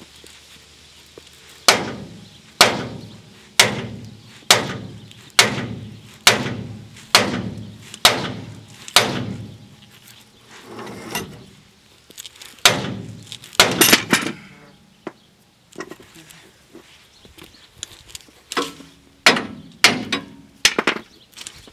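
Hammer blows on the steel steering linkage of a 1996 Dodge Ram 1500's front axle, knocking to pop the tie rod, drag link and Panhard bar ball-joint studs loose. Steady strikes about one a second, each ringing briefly, then a pause and a few more, and a quicker run of blows near the end.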